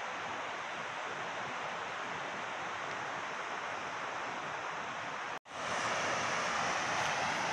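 Steady rushing of river water spilling over a weir and rocks. The sound cuts out for an instant about five seconds in and comes back louder and brighter.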